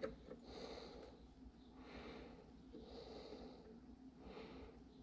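Near silence, with a person's faint breathing close to the microphone in soft swells every second or so, and a light click at the very start.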